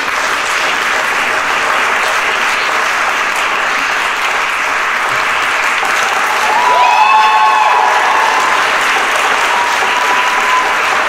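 Audience applauding loudly, with a few voices calling out about six to seven seconds in.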